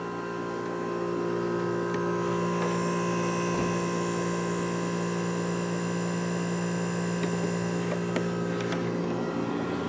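1970 Montgomery Ward Signature window air conditioner running steadily: its R22 reciprocating compressor hums under the fan's airflow, with several steady tones over an even rush of air.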